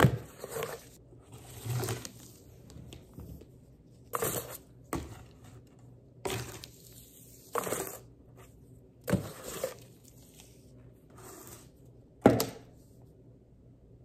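Homemade paper fingerboard being flicked through tricks on a cardboard ramp: a string of short scrapes and sharp taps as the board slides and lands on the cardboard and hardwood floor, with quiet gaps between them. The sharpest tap comes near the end.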